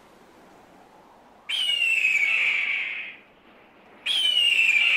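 A hawk screaming twice: each a long, rasping cry that starts high and slides down in pitch, the two about two and a half seconds apart.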